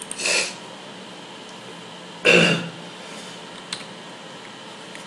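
A man clearing his throat twice, a short one at the start and a louder one about two seconds later, with a few faint computer-keyboard clicks in between.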